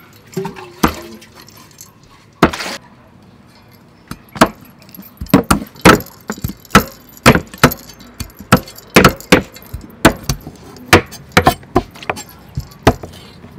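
A cleaver chopping the claw tips off raw chicken feet on a thick wooden chopping block. After a few scattered knocks, a steady run of sharp chops starts about four seconds in, roughly two a second.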